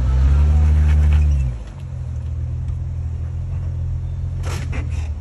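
Jeep Wrangler engine pulling as the vehicle crawls over rock. About a second and a half in it drops back to a lower, steady running note. A few short knocks come near the end.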